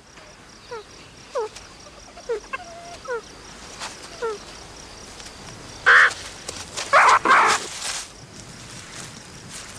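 Meerkats calling: a run of short, high, falling peeps, then a few louder harsh, noisy calls in the second half.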